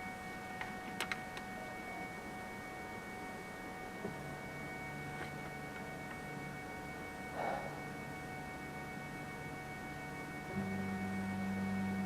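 FlashForge Adventurer 3 3D printer's motors humming at steady pitches: a low hum comes in about four seconds in and shifts to a louder, higher hum near the end. A few faint clicks about a second in.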